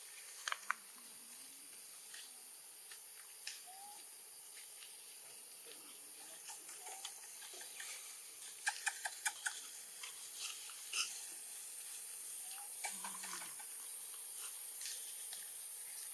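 Faint crackle of dry leaf litter and twigs under macaques' feet, scattered sharp clicks with a quick run of about five near the middle, over a steady high hiss. A few faint short chirps come through.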